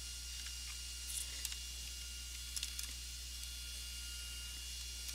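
A few computer keyboard keystrokes, in two small groups about a second in and near the three-second mark, over a steady low electrical hum and faint hiss.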